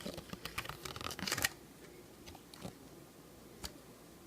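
Paper and plastic packaging from a surprise egg rustling and crinkling as it is handled: a flurry of crisp rustles and clicks in the first second and a half, then only a couple of single clicks.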